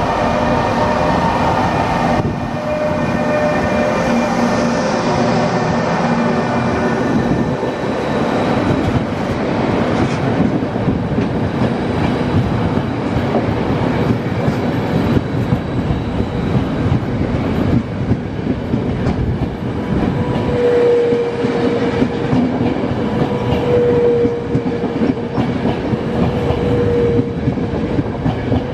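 Italian FS E.402 electric locomotive and its Intercity coaches rolling past along the platform, the wheels rumbling and clacking over the rail joints. A steady whine comes in about two-thirds of the way through.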